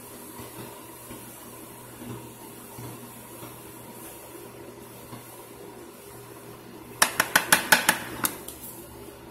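Quick run of about seven sharp taps against the starch bowl, lasting just over a second near the end, over a faint steady hum.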